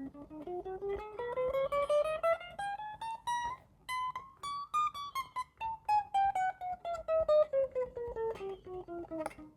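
Unplugged Fender HSS Telecaster electric guitar played one note at a time, each fretted note picked separately, climbing steadily up the neck and then stepping back down, about three to four notes a second. This is a fret-by-fret check for buzz, and the notes ring clean.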